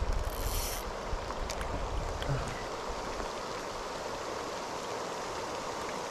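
A short whizz of line paying off a spinning reel on a cast about half a second in, then a steady hiss of rain falling on the lake. Wind rumbles on the microphone during the first two seconds.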